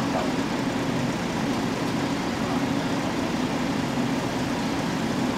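Steady low drone of engines running at idle, level and unbroken.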